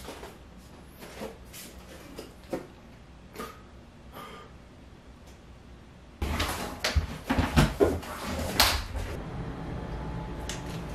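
Faint scattered clicks and knocks, then about six seconds in, louder clatter of dishes and containers being handled in a kitchen, over a steady low hum.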